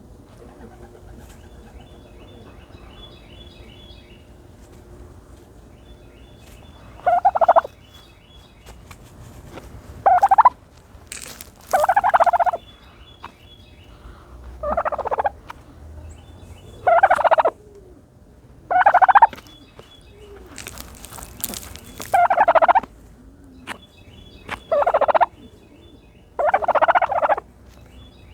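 A turkey dust-bathing and calling: nine loud calls, each under a second long, come about every two to three seconds, starting about a quarter of the way in.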